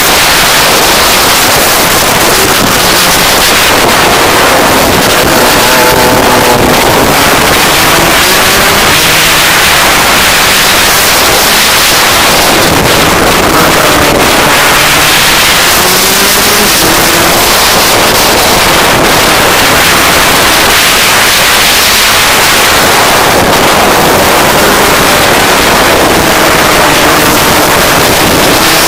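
Rotax DD2 kart's 125 cc two-stroke engine running on track, its pitch rising and falling again and again as it speeds up and slows, under heavy wind noise on the microphone.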